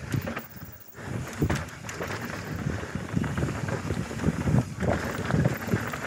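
Mountain bike descending a dry dirt singletrack at speed: tyres rolling over dirt and roots and the bike rattling over bumps, with wind buffeting the microphone. It goes briefly quieter just under a second in.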